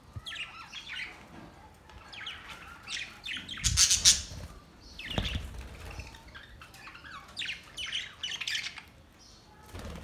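A flock of budgerigars chattering, chirping and squawking in clusters of quick calls, with wings flapping as birds fly about. A loud burst comes about four seconds in.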